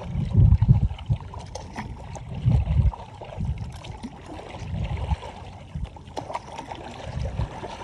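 Paddle strokes through lake water beside a stand-up paddleboard, with water splashing and lapping against the board. Irregular low gusts of wind buffet the microphone, strongest about half a second in and near three seconds.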